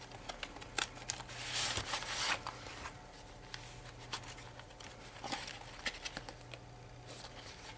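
Paper and cardstock pages of a handmade notebook being handled and flipped: soft rustles and light ticks, with a longer paper swish about two seconds in.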